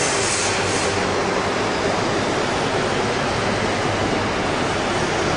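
PV-100 vertical hydraulic press's pump unit running steadily: an even rushing noise with a faint low hum.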